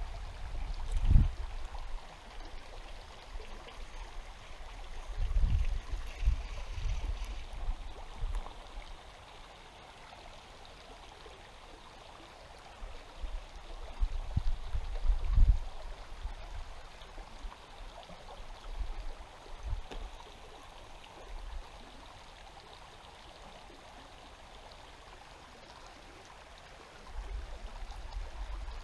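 A river's water running steadily, with low rumbling bumps now and then, the loudest about a second in and around fifteen seconds.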